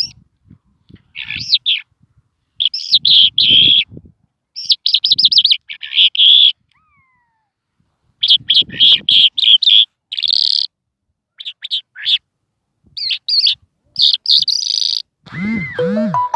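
A lark singing in bursts of rapid, high trilled phrases separated by short pauses. Near the end a different sound with lower, arching notes comes in.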